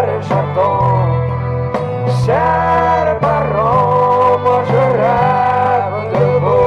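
A Cajun waltz played by a band. Melody lines slide and hold over a steady bass line.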